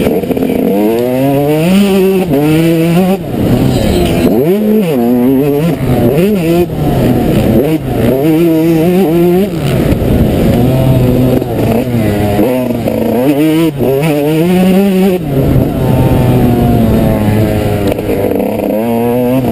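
Yamaha YZ 125's 125 cc two-stroke single-cylinder engine at racing revs, close up, its pitch climbing and dropping back again and again as the bike is throttled hard and shifted around the track, with a steadier held stretch about two-thirds of the way through.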